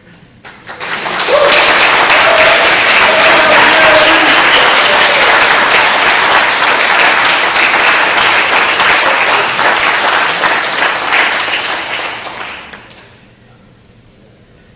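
Congregation applauding, with a voice cheering over it in the first few seconds. The clapping swells in about half a second in, holds steady for around ten seconds, then dies away near the end.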